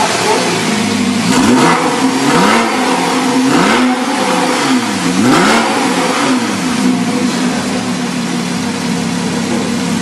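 2012 Porsche 911 Carrera S (991) 3.8-litre flat-six, stationary, revved in about four quick blips, its pitch rising and falling with each, then settling to a steady idle in the second half.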